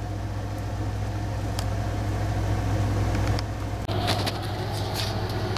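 A steady low mechanical hum that stops about three and a half seconds in, followed by rustling and light handling noises.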